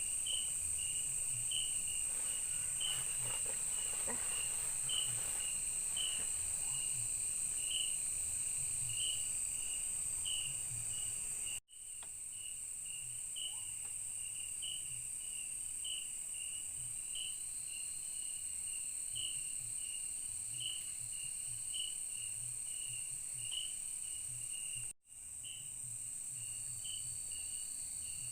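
Night insect chorus: a steady high-pitched drone with a second insect chirping regularly, about two chirps a second, over faint low pulsing. The sound cuts out for an instant twice.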